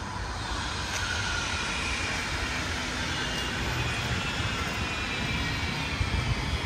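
Electric light-rail train passing close by: a whine from its traction motors that glides slowly in pitch over the rumble of the running train.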